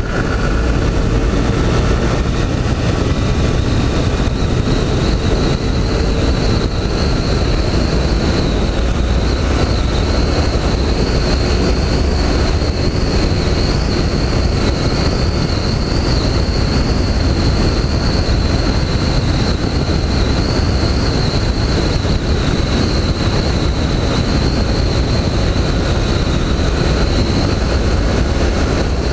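Honda CG 160 Fan's single-cylinder engine running hard at full throttle at speed, mixed with heavy rushing wind, and a steady high-pitched whine above it.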